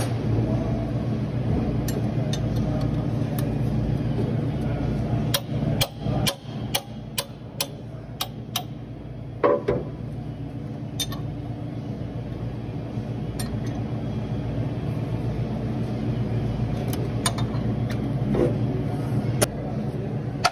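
Hand tools clicking and tapping on a forklift engine's fasteners during a head gasket teardown: a quick run of sharp clicks about five seconds in and a few more near the end, over a steady low hum.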